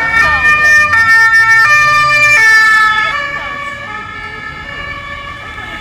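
Two-tone emergency vehicle horn, the Swiss 'tatü-tata', alternating between a high and a low note about every three-quarters of a second. It is loud for the first three seconds, with the low rumble of a vehicle engine under it, then carries on fainter.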